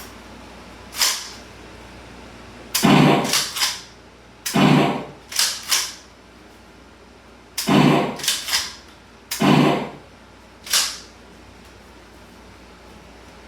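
Gunshots from firearms fired in a training drill: about a dozen sharp reports, some single and some in quick strings of three.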